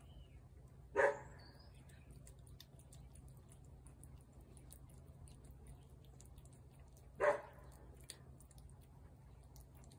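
A dog gives two short barks, one about a second in and another near the end.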